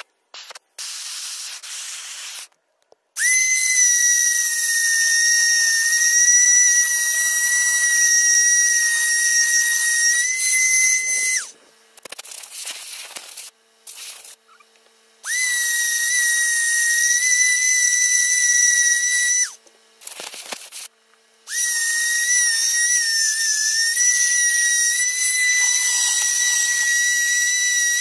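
High-speed rotary carving tool whining at a steady high pitch. It runs in three stretches with short pauses between, and the pitch wavers slightly in the last stretch.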